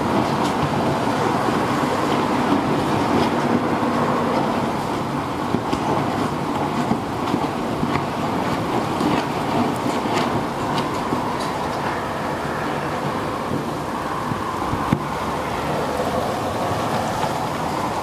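Strong storm wind blowing in a steady rush, with a few faint scattered ticks and rattles.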